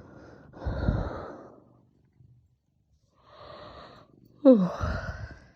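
A person with very intense hiccups: a loud breathy gulp about a second in, a softer breath, then a sharp, loud voiced hiccup that falls in pitch near the end.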